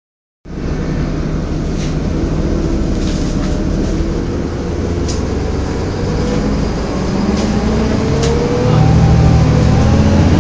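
Interior of a Wright StreetCar bus on a Volvo B7LA chassis: steady engine and road drone with scattered rattles and clicks. A whine rises in pitch about seven to nine seconds in, and the drone grows louder near the end.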